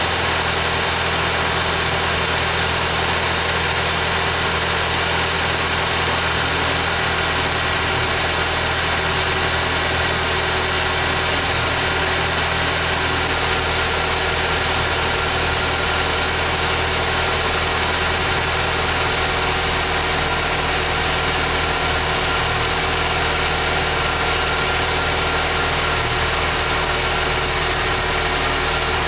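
2011 Ford Fiesta engine idling steadily, with a steady high-pitched squeal over the idle: the irritating noise this car makes after a cold start.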